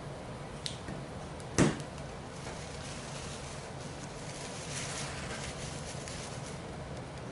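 A single sharp knock about a second and a half in as the removed stock graphics-card cooler, a finned metal heatsink with a fan shroud, is set down on the table, with a small click just before it. Light handling rustle near the end over a faint steady room hum.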